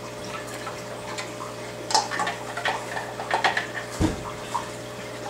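Handling noise from a black plastic AquaC Remora protein skimmer being lifted out of a foam-packed cardboard box: scattered light clicks and rustles, with a dull low thump about four seconds in. A steady low hum runs underneath.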